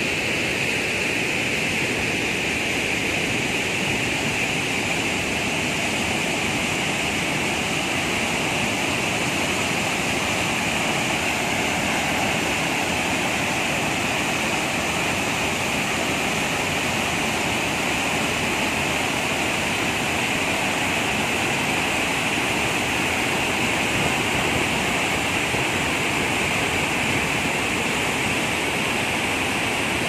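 Waterfall: river water pouring in white rapids over rock ledges, a steady, unbroken rush with a strong hiss.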